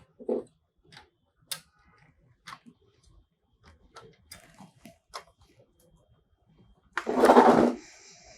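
Small plastic clicks and knocks of a laser printer's gear-box cover and parts being handled and fitted back in place. A louder rattling scrape lasting under a second comes near the end.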